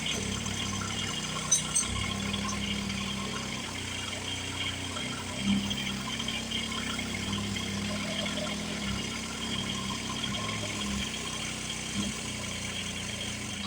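A steady mechanical hum with a few short knocks and clicks.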